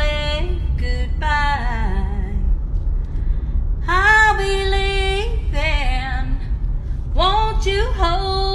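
A woman singing in phrases of long held notes with short breaks between them, over a steady low rumble.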